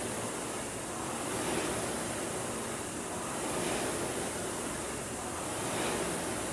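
Concept2 indoor rower's air-resistance flywheel whooshing under hard rowing, the rush swelling with each drive and easing on the recovery, about one stroke every two seconds.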